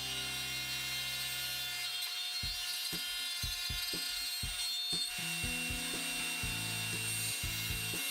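Background rock music: a bass line with a steady drum beat. The bass drops out for a few seconds in the middle, leaving only the drums, and comes back about five seconds in.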